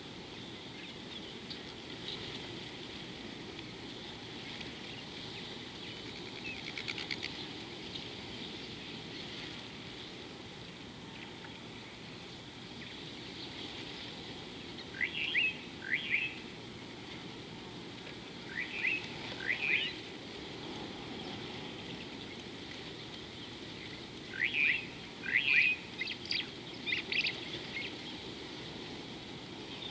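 Wild birds calling: short, sharp high notes in quick pairs, first about halfway through and twice more, the last a busier cluster near the end, over a steady background hiss.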